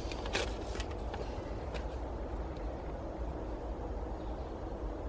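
A few short, light clicks, a cluster about half a second in and another near two seconds, over a steady low background hum.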